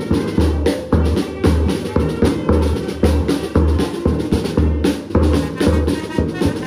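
Banda de pueblo marching brass band playing: trumpets and other brass over a bass drum struck at a steady beat of about two a second, with a side drum.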